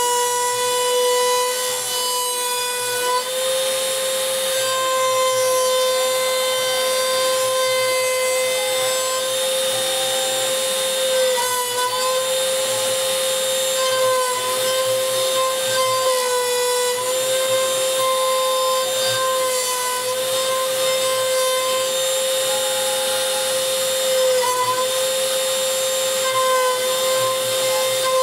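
Wood router spindle on a homemade CNC machine running at high speed with a steady whine while its bit V-carves letters into a wooden sign. The pitch dips briefly a few times as the cut loads the motor.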